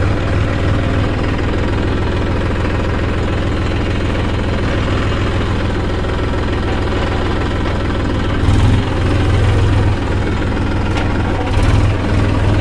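Diesel tractor engine running steadily while the tractor pulls a cultivator through the soil, a deep continuous drone. It swells louder briefly about eight and a half seconds in and again near the end.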